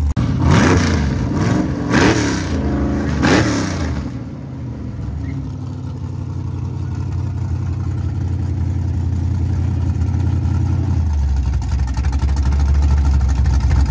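A race car's engine is revved sharply three times, each rev climbing and falling back, then keeps running steadily. About eleven seconds in, a deeper low rumble joins it and the sound slowly grows louder.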